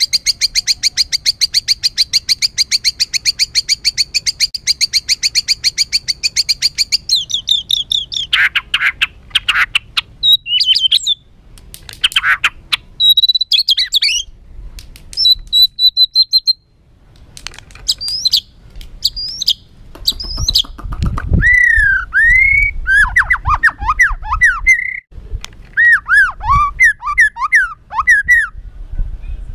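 White-rumped shama (murai batu) singing a rough, agitated song. It opens with a fast rattle of repeated high notes lasting about seven seconds, then breaks into separate whistles and chips, and near the end into lower, swooping slurred phrases.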